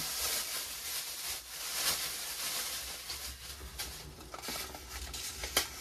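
Packaging of a new hairbrush rustling and crinkling as it is handled and opened, with a few sharp clicks near the end.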